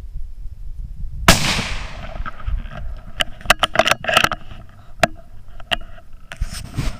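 A single .17 HM2 rimfire rifle shot about a second in: one sharp crack with a short ringing tail. It is followed by a string of sharp clicks and crackles.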